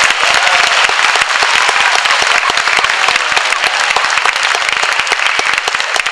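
Audience applauding: many hands clapping together in a dense, steady patter that thins slightly near the end.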